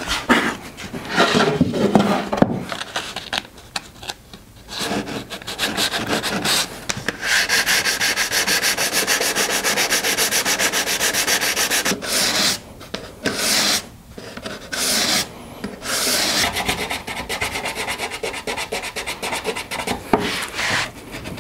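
Hand sanding with a small folded piece of sandpaper, scratched rapidly back and forth into a crack in a reclaimed pallet-wood board, with a few short pauses past the middle. This roughens and cleans out the check so that epoxy resin can bond inside it.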